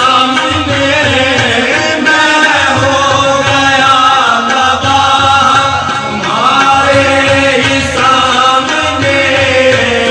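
Ghazal music: a wavering melody line over a steady tabla beat.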